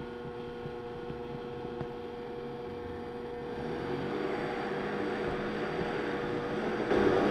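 High-powered blender motor running on low, churning a thick hazelnut, cocoa and sugar paste while the tamper pushes it down. A steady hum that grows louder about four seconds in and again near the end, the machine working hard against the thick mix.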